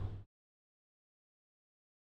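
Near silence: the last of the background sound cuts off about a quarter second in, and the audio is completely silent after that.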